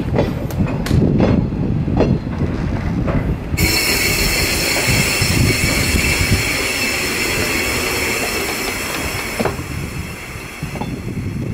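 Freight train wagons passing, with a low rumble and wheels clicking over rail joints. About three and a half seconds in, a high, steady, multi-tone wheel squeal starts and holds, fading near the end.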